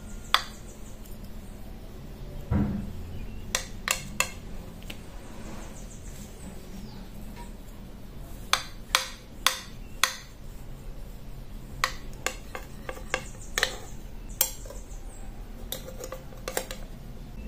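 Metal cake server clinking and tapping against a plate while cutting a slice of soft coconut cake: irregular sharp clicks, some in quick clusters, with a duller knock about two and a half seconds in.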